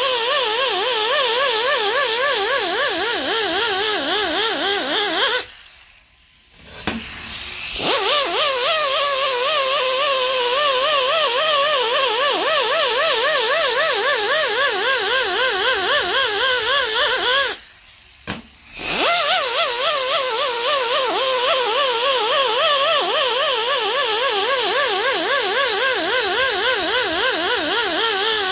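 Air die grinder with a small abrasive disc running at a high whine, its pitch wavering up and down as it is pressed and worked back and forth over the band surface of a 4L60-E reverse drum, taking the glaze off so the band will not slip. The grinder stops twice: about five seconds in for a couple of seconds, and again briefly near eighteen seconds.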